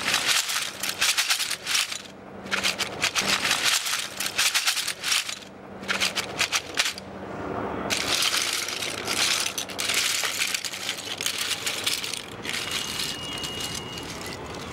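Oyster shells clattering and clinking against one another as hands rake and turn them in a wire cage, in quick runs of sharp clicks with short pauses. From about seven seconds in, the clatter gives way to a denser, steadier rattling rush.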